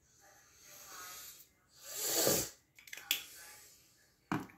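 Breathing close to the microphone, with one louder breath about halfway through, then a few sharp clicks and taps as a colouring pencil is handled on the table.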